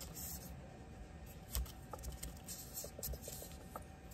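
Faint handling noises of a Schrade Bear Hunter LB-5 folding knife being cleaned by hand with a towel and a thin pick: light scratching with a few small clicks, a slightly louder tap about a second and a half in and a quick run of tiny ticks near the end.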